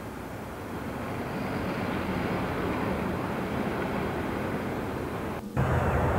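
A steady rushing rumble that builds over the first couple of seconds. It breaks off for an instant near the end, then comes back louder and deeper.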